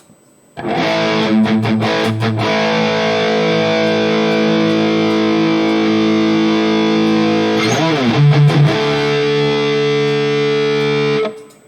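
Electric guitar through a high-gain Mesa Triple Rectifier amp model on a digital guitar modeler. A distorted chord is struck with a few quick picks and left to ring, a second chord comes in about eight seconds in, and it is muted shortly before the end.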